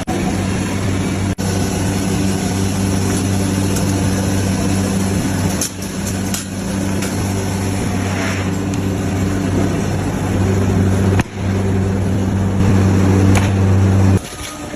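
A machine's motor running with a steady low hum and a hiss of noise above it, cut by a few brief dropouts, stopping suddenly near the end.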